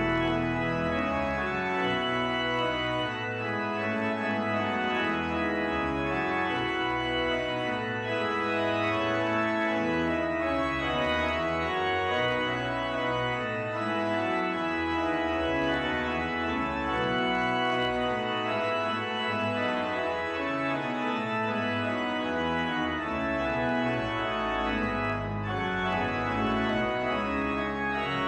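Organ playing a slow piece of sustained, held chords that change every second or so.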